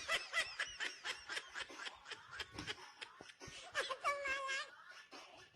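A person laughing in quick giggling bursts, with a longer held voiced note about four seconds in.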